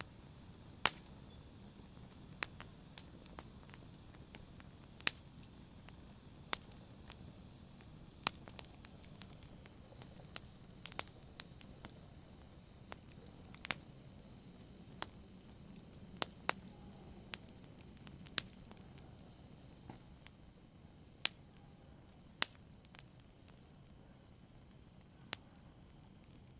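Wood fire crackling in a fireplace: irregular sharp pops and snaps, a few of them loud, over a soft steady hiss of burning.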